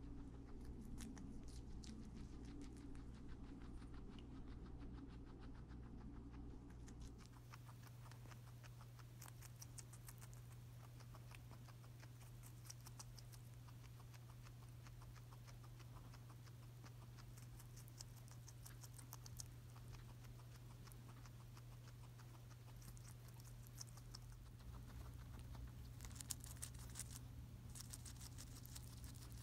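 Guinea pig chewing leafy greens and a chunk of cucumber: a fast, faint run of small crunching clicks, several a second, over a steady low hum.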